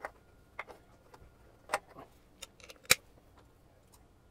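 Sharp metal clicks and ticks of a torque wrench on the 10 mm bolts of an engine's water inlet housing as they are tightened to 80 inch-pounds, scattered irregularly, with the loudest single click about three seconds in.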